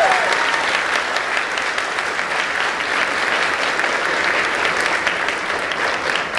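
Audience applauding: many hands clapping together, slowly dying down.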